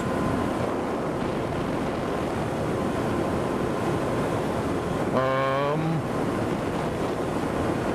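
TGB Blade 1000 ATV's V-twin engine and tyres running at steady road speed, with wind rushing over the microphone. About five seconds in, the rider gives a brief hum.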